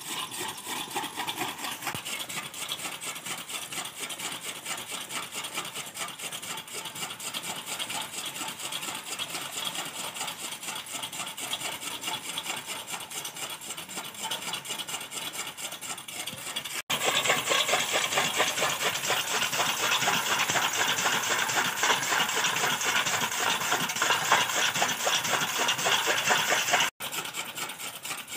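Old camel-driven chaff cutter (toka machine) running: its gear drive and flywheel knives make a fast, steady mechanical clatter as green fodder is chopped. The clatter jumps louder for about ten seconds in the middle, then drops back abruptly.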